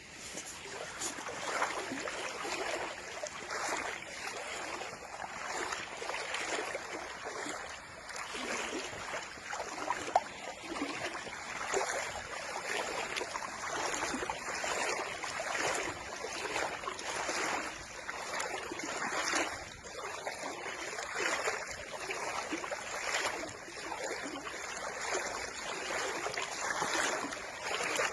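Choppy water lapping and splashing, swelling and easing every second or two.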